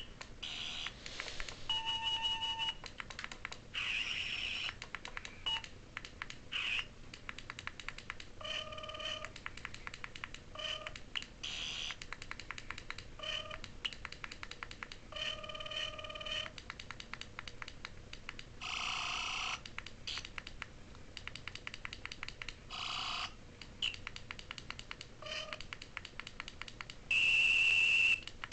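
Toy sonic screwdriver's electronic sound effects: a run of short buzzing and beeping tones at a few different pitches, each under a second, with fast clicking throughout. A longer, louder steady tone sounds near the end.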